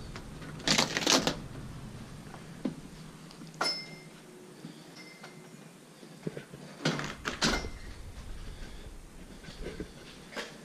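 A front door's knob and latch clicking as the door is opened and swung shut, with a few knocks and handling sounds, the loudest about a second in and again around seven seconds in.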